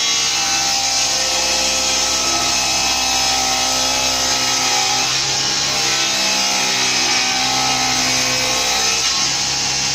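Table saw running and ripping a long beech board lengthways into strips: a steady motor and blade whine with the sound of the blade cutting through the hardwood.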